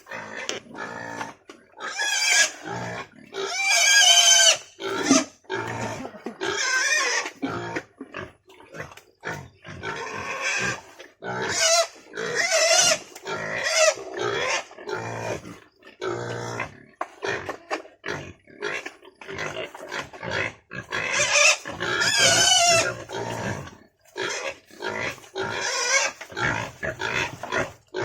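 Several pigs squealing and grunting at feeding time, a dense string of short calls. The loudest, high wavering squeals come in bunches, with lower grunts between them.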